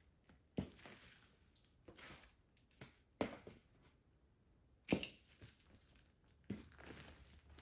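Buffalo T24400 chunky-heeled platform boots stepping on a tile floor and onto squashed burgers and fries: sharp heel knocks on the tiles, each followed by a soft squish of food underfoot. There are about six uneven steps, and the loudest comes about five seconds in.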